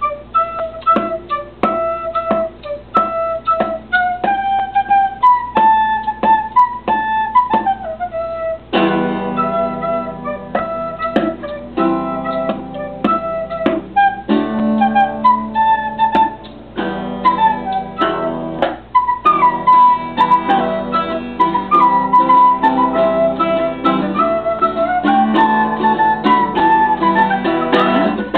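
Guitar and flute playing an Irish-style tune. For about the first nine seconds a sparse line of plucked notes carries it, then fuller, denser playing takes over.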